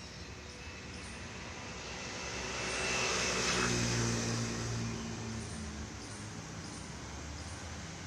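A motor vehicle passing by: its sound builds to a peak about three to four seconds in, with a low engine hum, then fades back to the steady background.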